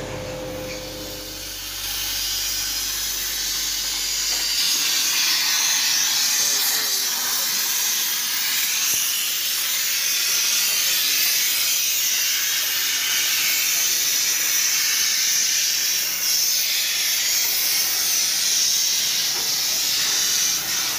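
Steady, loud hiss of gas under pressure. It builds about two seconds in and then holds with little change.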